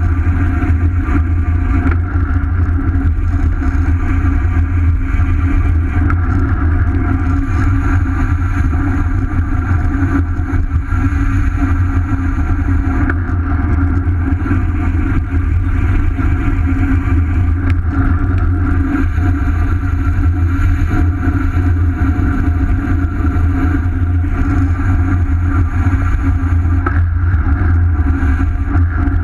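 Steady low rumble of wind buffeting and road noise picked up by a bicycle-mounted action camera while riding at speed, with a steady higher hum on top.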